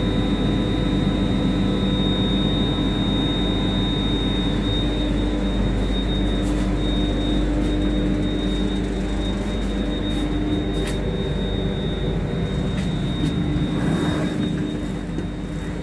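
Steady machinery drone inside an Indian Railways AC chair car standing at a platform: the coach's air-conditioning and electrical equipment running with a constant hum, with a few faint clicks.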